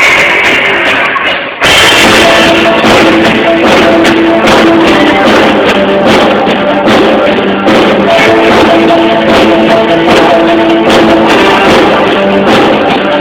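Live rock band playing loudly, electric guitar over a drum kit. The sound dips briefly about a second and a half in, then the full band comes back in.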